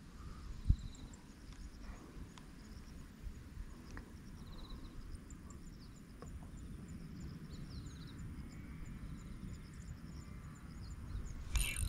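Insects chirping in short, repeated high trills over a low outdoor rumble, with one sharp thump about a second in.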